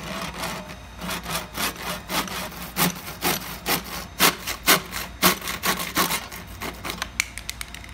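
Handsaw cutting through a black plastic notch on a stroller frame: steady back-and-forth rasping strokes, about three a second, then a few quick clicks near the end.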